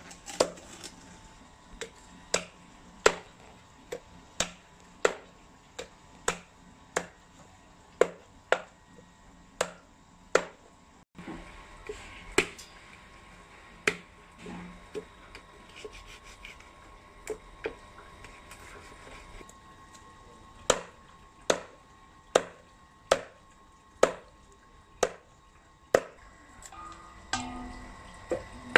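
Large knife chopping python meat and bone on a thick round wooden chopping block: sharp, regular knocks about one and a half a second. The chopping stops about ten seconds in, with only fainter handling sounds, and resumes about twenty seconds in.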